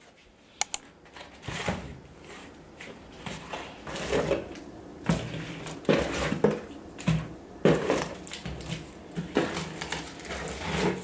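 Hands handling and unpacking packaging on a table: irregular rustling, crinkling and light knocks, with a sharp click about half a second in.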